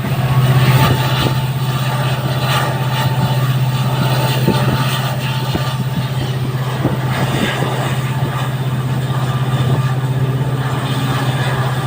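WDP-4D diesel locomotive's EMD two-stroke V16 engine humming steadily as the train runs, with scattered knocks and clicks from the moving train.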